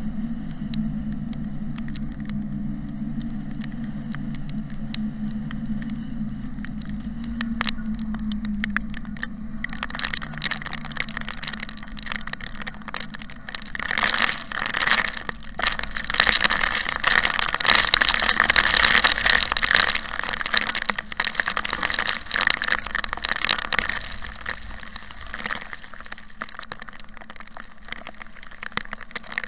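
Rain hitting a moving car's windshield and roof, heard from inside, over the steady drone of the car on the road. Scattered drops become a heavy downpour from about ten seconds in, heaviest around the middle and easing near the end: the heavy rain of a severe thunderstorm.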